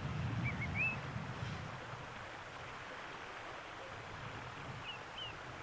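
A river flowing steadily, with a small bird giving a few short rising chirps in the first second and again near the end. A low rumble sits under the first second or so.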